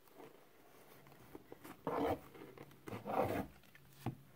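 Plastic-sleeved trading cards sliding and rubbing against each other and the cardboard box as gloved hands pull a stack out: two rasping slides about two and three seconds in, then a light tap near the end.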